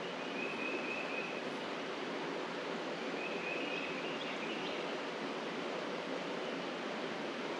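Steady outdoor background hiss, with a faint high tone twice: once about half a second in and again around three seconds in.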